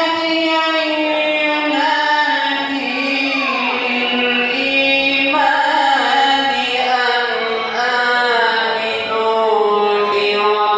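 A hoca's solo chanted vocal, amplified through a microphone and PA, holding long ornamented notes that slowly sink in pitch.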